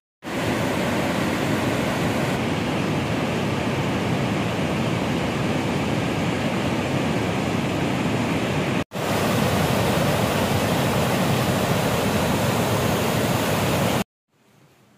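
Swollen, muddy mountain river in flood, its water rushing steadily. The sound breaks off for an instant about nine seconds in and cuts off suddenly near the end.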